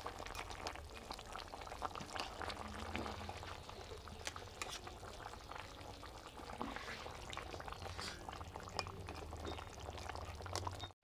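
Papaya and tangra fish curry boiling in a pan, with many small irregular bubbling pops over a steady low hum.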